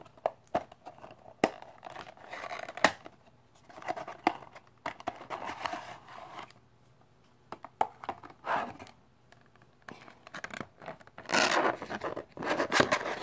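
Clear plastic display case and blister tray being handled and pried open: scattered clicks, scrapes and crinkling of stiff plastic, busiest near the end.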